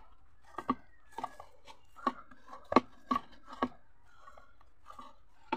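Sesame-studded dough kneaded by hand in a plastic bowl, with a series of irregular short slaps and knocks as the dough is pressed and thrown against the bowl's side.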